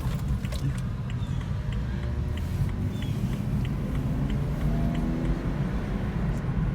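Car engine and road noise heard from inside the cabin while driving through a U-turn: a steady low rumble with a few faint ticks.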